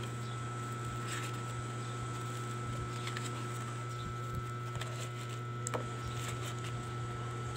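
Photobook pages being turned by hand: a few brief, soft paper flips and rustles over a steady low hum.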